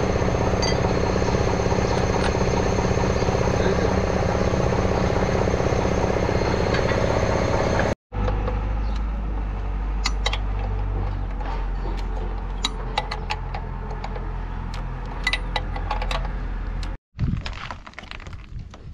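A loud, steady machine noise with a fast flutter, like an engine running close by. After a sudden cut, a low steady hum with scattered sharp metallic clicks of hand tools on the truck's engine fittings. Near the end, after another cut, it goes quieter.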